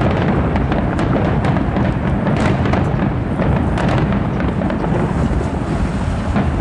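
A fireworks display of aerial shells bursting in a dense barrage: a continuous low rumble of booms with many sharp cracks on top.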